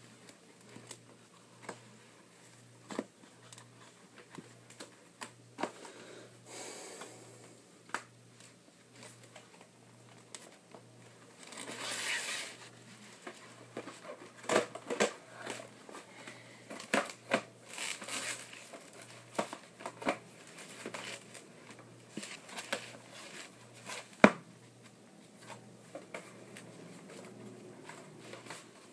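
A cardboard VHS box set and its contents being handled and pushed back into the box: light rustling and crinkling with scattered taps and clicks, and one sharper knock late on.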